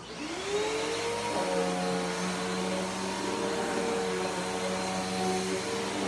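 Bissell PowerForce Helix Turbo upright vacuum cleaner switched on, its motor spinning up over the first half-second, then running steadily as it is pushed over a dog-hair-covered sheet.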